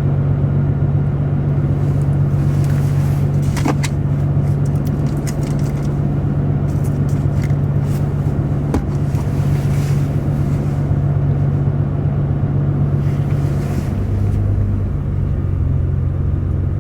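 Car engine and road noise heard from inside the cabin: a steady low drone that shifts in pitch about fourteen seconds in, with a few faint clicks.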